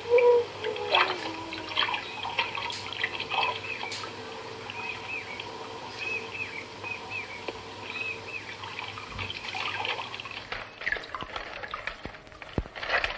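Water sounds with short high chirps repeating over them, densest through the middle, and a faint steady tone underneath.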